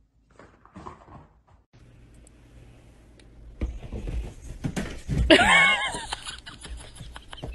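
Scattered soft thumps and rustles as a cat pounces on a bedsheet, with one loud, drawn-out pitched cry about halfway through that dips and then rises.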